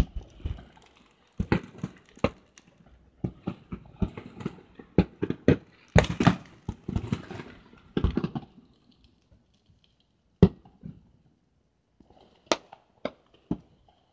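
Fireworks and firecrackers going off: rapid clusters of sharp pops and bangs for about the first eight seconds, then a few scattered single bangs.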